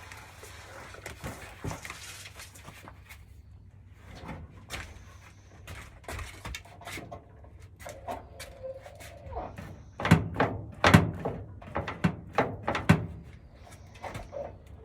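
A series of sharp mechanical knocks and clunks while the clutch adjustment on a 1956 Dodge Town Panel is being checked, with the loudest group of several heavy knocks about ten to thirteen seconds in.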